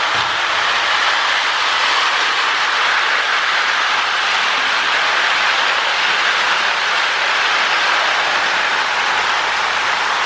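Lionel 1666 O-gauge toy steam locomotive running on tinplate track: the steady whir of its electric motor, gears and wheels on the rails.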